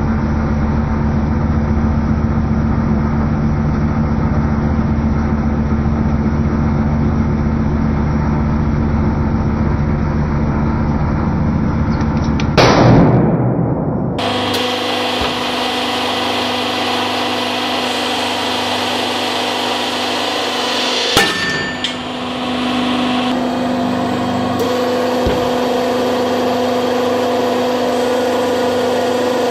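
A hydraulic press runs with the steady hum of its electric pump motor as the ram squeezes a rubber ball. About halfway through there is a sudden loud pop as the ball gives way. After that the press hums on at a higher, steadier pitch, with one sharp click a few seconds later.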